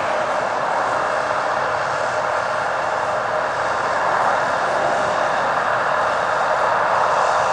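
Farm harvest machinery running steadily: an even mechanical noise with a constant hum that does not change.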